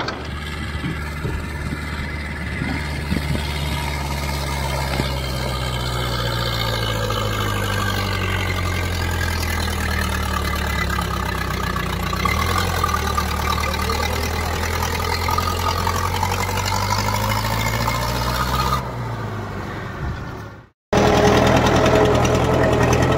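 Tractor diesel engine running steadily, its pitch sagging slightly about halfway through and climbing again later. The sound cuts out for a moment near the end and comes back as engine noise with a higher whine in it.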